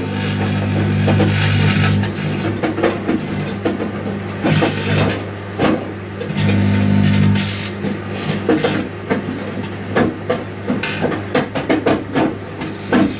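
Microwave oven running with a low hum that swells and fades, over irregular crackling and sharp pops from lithium metal burning and sparking inside it.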